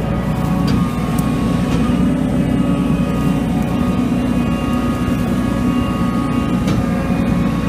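Heavy farm machine running as it rolls over straw stubble on its tyres and rubber track unit: a loud, steady, deep drone with faint steady whines above it and a few light clicks.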